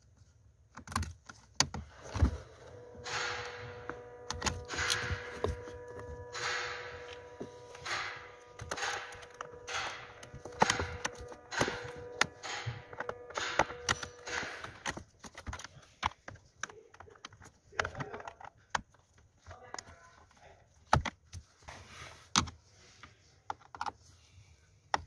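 A hand tool clicking in repeated strokes, with sharp knocks on the plastic HVAC case, as the bolts holding the A/C air-mix servo motor assembly are undone. A steady hum runs under the strokes until about halfway, then stops, leaving scattered knocks.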